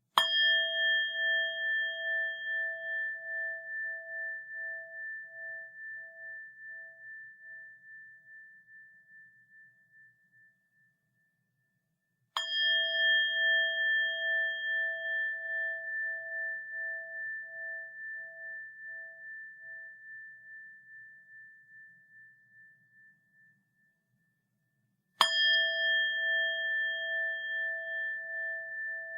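A bell struck three times, about twelve seconds apart, each strike ringing on and slowly fading away with a steady pulsing wobble in its tone.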